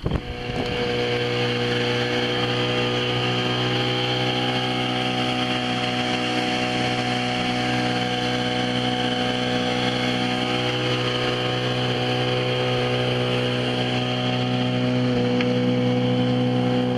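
Small outboard motor running steadily, driving the boat along at speed; it picks up over the first second, then holds an even pitch, lifting slightly near the end.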